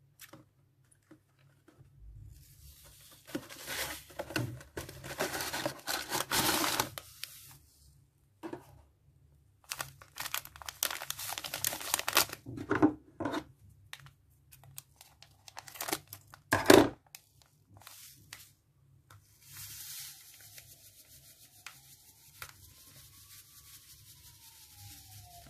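Plastic sachet of slime powder being crinkled and torn open, with a loud short tear about two-thirds of the way through. Near the end the green powder is poured out with a steady hiss.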